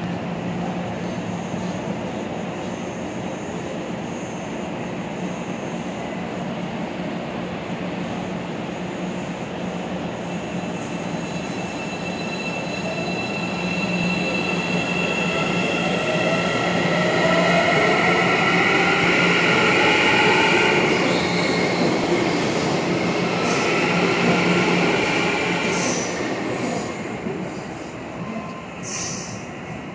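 Hyundai Rotem Série 2000 electric multiple unit pulling out of a metro station. Over a steady hum, its IGBT-VVVF traction inverter whines in several tones that rise in pitch as the train accelerates, with wheel-on-rail noise, then fades near the end as it leaves.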